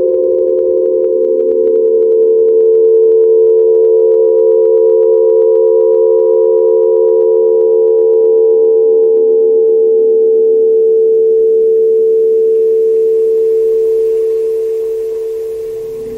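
Aeolian wind harp strings sounding in the wind: a steady chord of several close tones that waver slowly against one another, easing off over the last couple of seconds.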